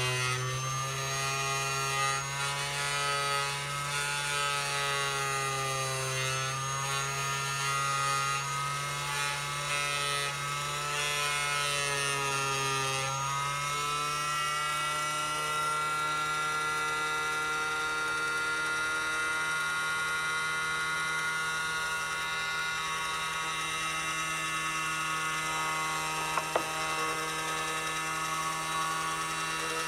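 Rockwell Sonicrafter oscillating multi-tool, mounted under a small table with a cut-down blade, running at its lowest speed while cutting hinge slots in balsa. Its pitch wavers up and down for the first half, then holds steady, with one short click near the end.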